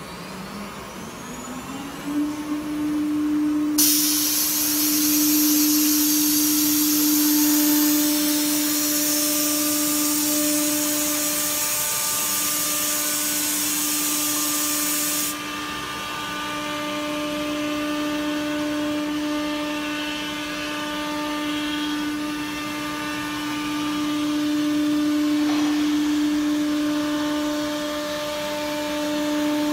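Saw head of an ATC CNC router spinning up to speed over about two seconds, then running with a steady whine while the circular blade cuts a wooden board. A loud hiss joins about four seconds in and stops suddenly around fifteen seconds.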